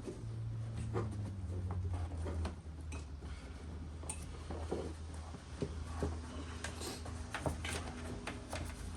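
Scattered light clinks, taps and knocks of parts being handled and fitted by hand, over a steady low hum.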